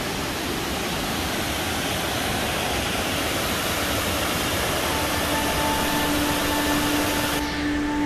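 Steady rushing roar of Burgess Falls, a large cascade waterfall. Near the end the hiss cuts off suddenly and only a duller, lower sound remains.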